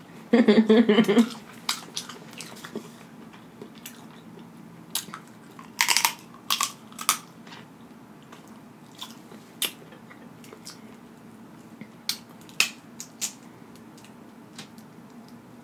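Close-miked eating of seafood-boil crab legs: a loud slurp of sauce about half a second in, then chewing with scattered wet mouth smacks and sharp clicks of crab shell being cracked.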